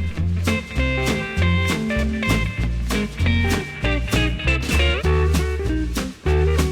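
Background music: a guitar-led tune over a bass line with a steady beat.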